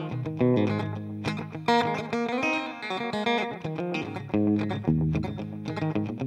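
Electric guitar played through a Smiletone Flying Monkey digital delay pedal set for slapback, a single quick echo on each picked note.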